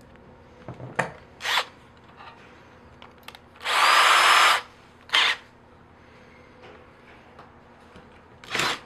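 Power drill run in short bursts, drilling holes in an aluminium angle bracket through a stepper motor's mounting flange. The longest burst lasts about a second, with a steady whine, around the middle; the others are brief spurts.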